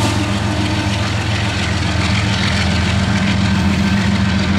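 Diesel engine of a GE C44-9W locomotive, the rear distributed-power unit of a freight train, running with a steady deep drone as it moves away along the track.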